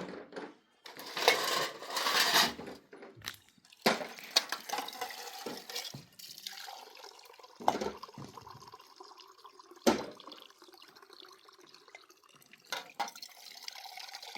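Water splashing and pouring, broken by a few sharp knocks.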